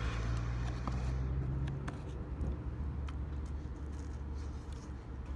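Steady low hum of an idling vehicle engine, with a few faint scattered clicks and rustles.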